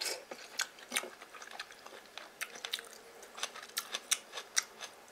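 Someone chewing a mouthful of noodles close to the microphone: a scatter of small, wet clicks and smacks at irregular intervals, a few a second.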